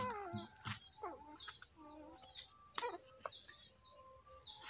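Small birds chirping: a quick run of short, high chirps in the first two seconds, then single chirps spaced through the rest.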